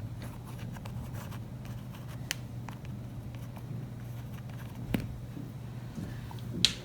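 Small metal bicycle hub parts being handled, giving scattered soft clicks and light scrapes, with a sharper click about five seconds in and another near the end. A steady low hum runs underneath.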